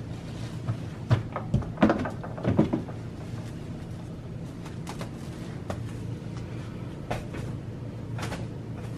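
A cluster of knocks, bumps and rustles about one to three seconds in, with a few fainter clicks later, as a person crawls on a carpeted floor and presses against a plastic-wrapped bed. A steady low hum runs underneath.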